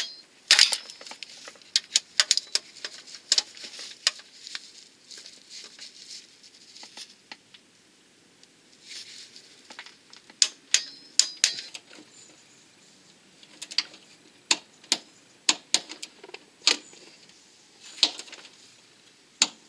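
Irregular sharp metallic clicks and clinks of hand tools and fasteners against metal car parts during reassembly, some single and some in quick clusters.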